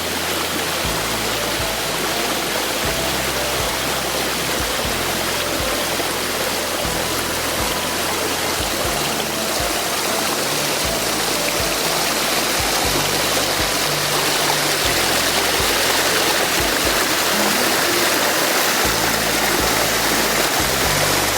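Steady rush of flowing water from a forest creek, a loud, even hiss, with soft background music under it.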